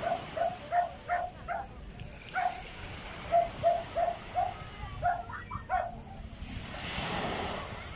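A dog barking in short, quick runs of about three barks a second, with a brief pause after the first handful. Near the end a small wave washes up on the shore.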